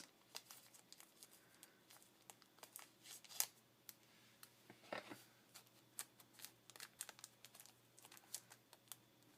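Faint rustling and crinkling of a craft kit's paper and packaging being handled and sorted, with many small scattered clicks and a couple of louder rustles about three and a half and five seconds in.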